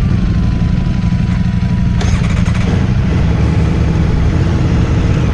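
Motorcycle engine idling steadily, with a short click about two seconds in.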